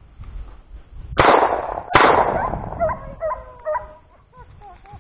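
Two shotgun shots about a second apart, fired at a quail that flushed in front of the pointing dog. Each shot rings out and dies away over most of a second. A dog then whines in short yelps.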